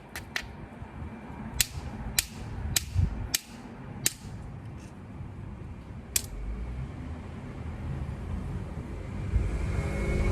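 Obsidian being knapped into a stone tool: about eight sharp, irregular clicks of stone striking or flaking stone over the first six seconds, then a low rumble with no clicks.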